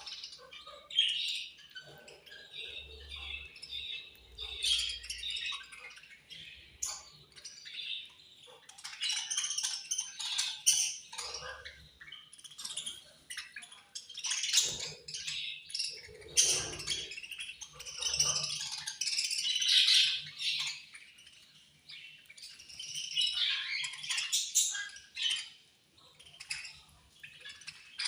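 A group of budgerigars chirping in quick, overlapping calls that swell and fade in waves.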